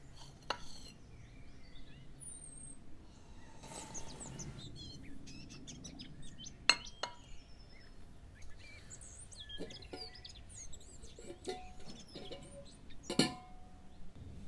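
Songbirds chirping and twittering as quiet morning ambience, with a few sharp clicks and clinks, the loudest near the end with a brief ring.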